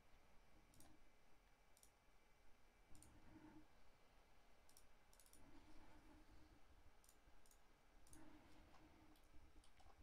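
Faint computer mouse clicks, about a dozen scattered irregularly, over near-silent room tone.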